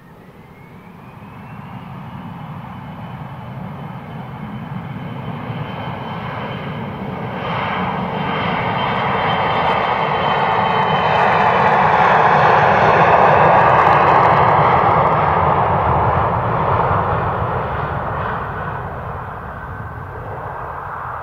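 Embraer regional jet's turbofan engines spooling up, with a whine rising in pitch over the first two seconds. The jet noise then builds steadily to a loud peak about twelve to fourteen seconds in and fades again.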